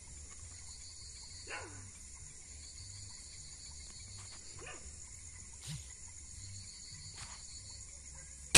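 Night insects shrilling steadily, with a pulsing trill that comes and goes, while a dog yelps twice in the distance with short falling cries. At the very end comes one sharp, loud crack.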